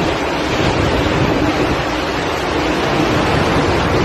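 Wind of a close tornado blowing, a loud, steady rushing noise, with wind buffeting the phone's microphone.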